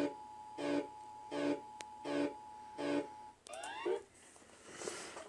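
Alarm tone presented as an emergency alert: a pulsed low tone repeating about every three-quarters of a second over a steady higher tone, which the listener judges fake. About three and a half seconds in it breaks off into a few quick rising glides, then a short burst of hiss.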